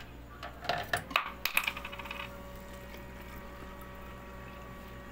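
Coins dropping into the coin slot of a piso water vending machine: a quick run of metallic clinks with a ringing tail over about a second, followed by a faint steady hum as the machine runs.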